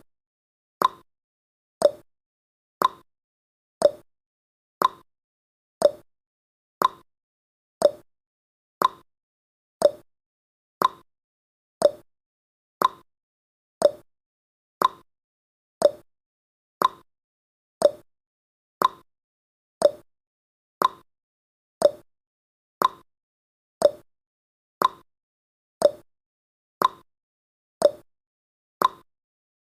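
Countdown timer's ticking sound effect: a short, sharp tick once every second, each dying away quickly.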